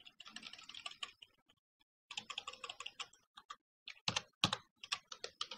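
Typing on a computer keyboard: two quick runs of keystrokes with short pauses between them, then slower, louder single keystrokes over the last couple of seconds.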